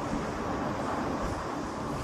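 Wind buffeting an outdoor microphone: a steady rushing noise with a gusty low rumble.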